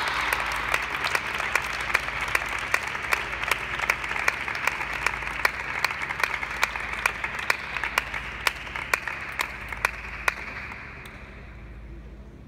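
Applause after a table tennis point, with a run of sharp individual claps over it. It fades out about eleven seconds in.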